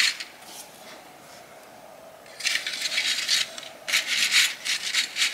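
Stiff, dry air plant leaves rustling and scraping as the plant is handled and pushed into a vase: a single click at the start, then two rustling bursts of a second or more each from about halfway in.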